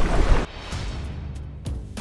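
A loud rushing, wind-like noise cuts off suddenly about half a second in. It gives way to background music with held tones and a few light percussive hits.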